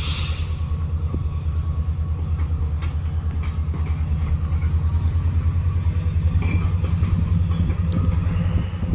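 A train passing with a steady, heavy rumble, mixed with wind buffeting the microphone.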